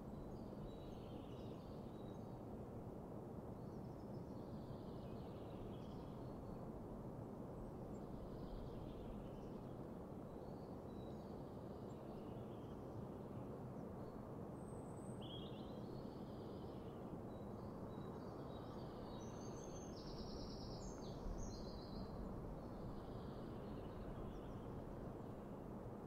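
Faint birdsong in a meadow: scattered high chirps and short phrases over a steady low rushing background, with one clearer, louder call about three quarters of the way through.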